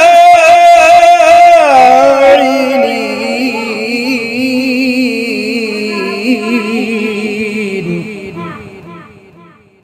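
A male reciter chanting the Quran in melodic tajweed, drawing out the last word of a verse in a long held line with wavering ornaments. The line falls in pitch and fades out near the end.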